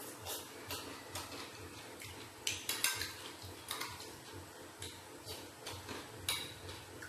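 A metal fork clinking and scraping on dinner plates while noodles and rice are eaten, in a string of short scrapes with the loudest about two and a half to three seconds in, over quiet eating noises.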